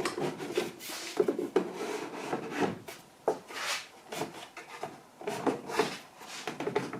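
Plywood fence extension scraping and knocking as it is worked down over a table saw's rip fence, a tight fit: repeated irregular rubbing strokes with a few sharp knocks.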